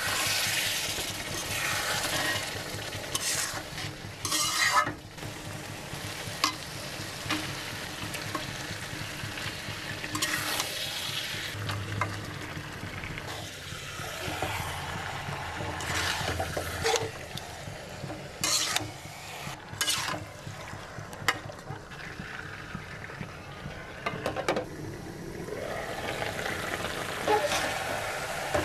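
A metal spoon stirring and scraping spiced meat in a metal wok-style pan over a steady frying sizzle, with irregular scrapes and sharp clinks of spoon against pan.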